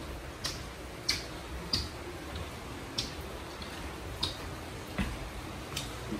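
Footsteps on a hard surface: about seven sharp clicks at uneven intervals of half a second to a little over a second, over a faint low rumble.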